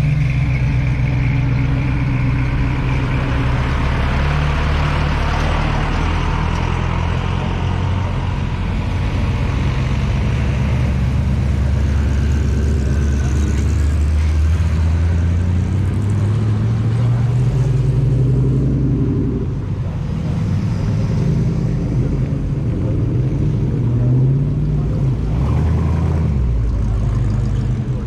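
Hot rod and street rod engines running as the cars drive out past. It is a continuous low engine note whose pitch rises and falls as they move, briefly easing off about two-thirds of the way through.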